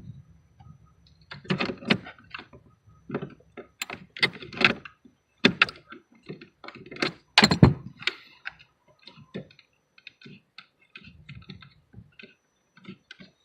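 Irregular metallic clicks, clinks and knocks of hand tools and parts being handled during battery removal work, with a few louder clusters of clatter.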